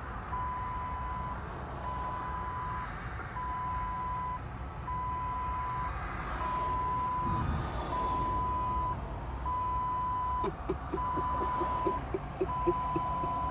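Vehicle reversing alarm beeping steadily, one long beep about every second and a half, over a low engine rumble. A short run of quick ticks comes in about ten seconds in.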